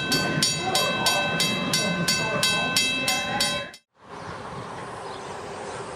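Steam locomotive (the 1897 Baldwin 4-4-0 D&LN No. 7) working along, its exhaust beating evenly about three times a second with a steady high ringing tone over it. About four seconds in the sound cuts off, and a quieter steady hiss follows.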